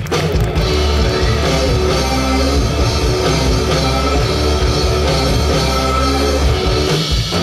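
Loud rock music playing continuously as stage-show backing.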